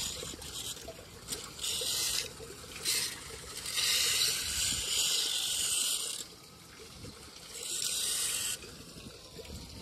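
Water running into a storm drain, with repeated bursts of hiss that start and stop abruptly, the longest about two seconds.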